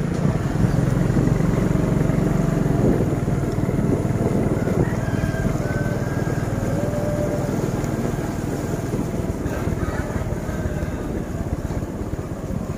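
Small motorcycle engine running steadily while riding, with wind and road rumble on the microphone; louder in the first three seconds.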